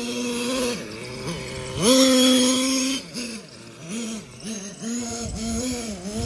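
Hot Bodies Lightning GT 1/8-scale RC monster truck's nitro engine buzzing at high revs. About two seconds in the throttle opens wide and it screams loudest for about a second, then it is eased off and blipped back up several times as the truck is driven.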